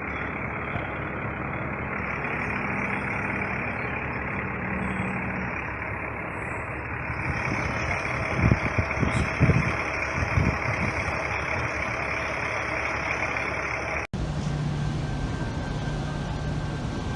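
An engine running steadily under a noisy background, with a few louder knocks partway through; the sound cuts off abruptly near the end and a different steady engine hum takes over.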